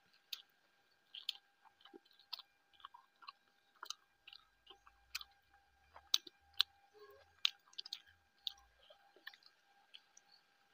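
A person chewing a mouthful of rice and fish close to a clip-on microphone: irregular short wet clicks, about one or two a second.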